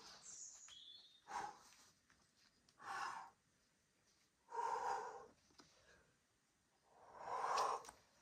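A climber's forceful exhalations while pulling through bouldering moves: four hard breaths out, the last two longer than the first.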